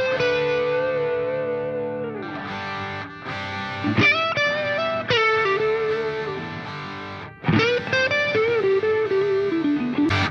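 Music: a distorted electric guitar playing a slow lead line of long held notes that slide down in pitch, with new notes picked about four seconds in and again past the middle.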